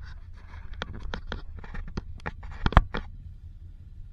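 Moto Guzzi V85 TT being ridden over a rough, stony off-road track: irregular sharp knocks and clicks with short scraping patches over a low rumble, with one heavier knock a little before three seconds in.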